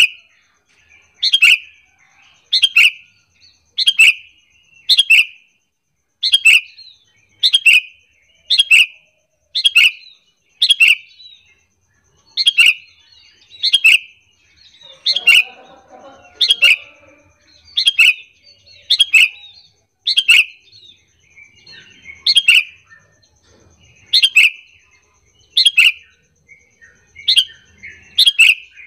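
Sooty-headed bulbul (kutilang) giving short, sharp, loud calls over and over, about one every second and a half with a few slightly longer gaps. This is the kutilang lure call (pikat), used to set other bulbuls calling back.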